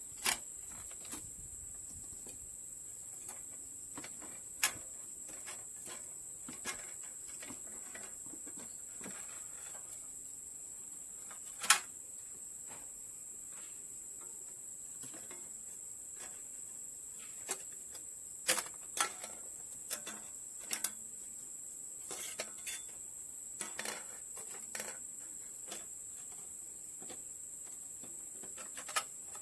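Scattered, irregular clinks and knocks of metal hand tools and engine parts being handled during cylinder head reassembly, the sharpest about a third of the way in and a cluster past the middle. A steady high-pitched hiss sits beneath them.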